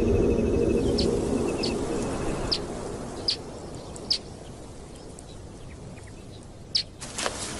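Wild birds calling in short, sharp chirps, roughly one a second, with a fast ticking trill in the first second or so. A low drone is loudest at the start and fades out over the first two seconds.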